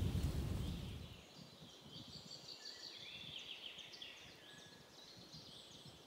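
Wind buffeting the microphone for about the first second, fading out, then faint birds chirping in a string of short high calls.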